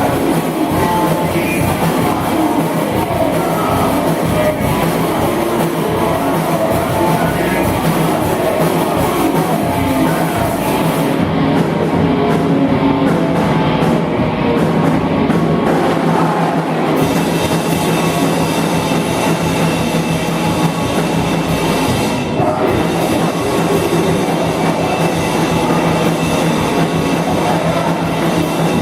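Rock band playing loudly, a full band with drum kit.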